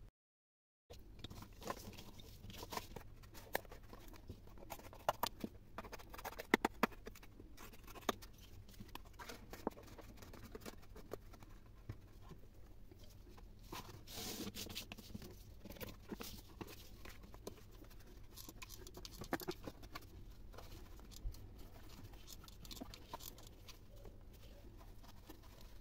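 Close-up handling noises on a tabletop: a small cardboard juice carton and a piece of burlap being picked up and handled, giving scattered sharp clicks and light rustling. It opens with a moment of dead silence.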